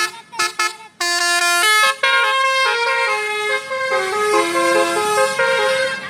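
Bus telolet horn of the Basuri type playing a tune: a few short toots in the first second, then a longer run of stepped notes that stops near the end.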